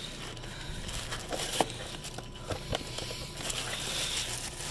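Clear plastic bag crinkling and rustling as a hand handles it inside a cardboard box, with a few light knocks and taps scattered through.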